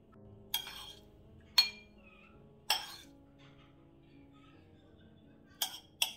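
Metal spoon clinking against a glass baking dish and ceramic bowl five times at uneven intervals while scooping and spreading chopped egg, over quiet background music.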